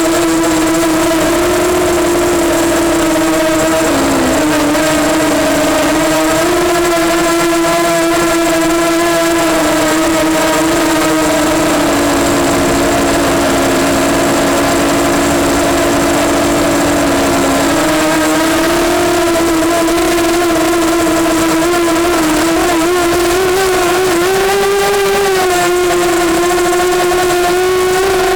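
EMax Nighthawk 250 quadcopter's brushless motors and propellers whining steadily, the pitch wavering with throttle: lower for several seconds in the middle, a little higher near the end.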